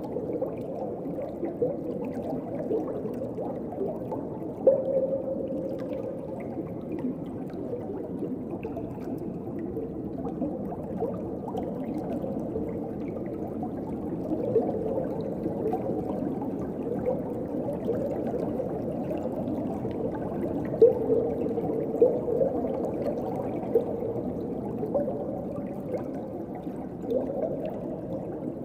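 Underwater ocean ambience: a steady, muffled wash of water with scattered bubbling and gurgling blips, and a few louder pops.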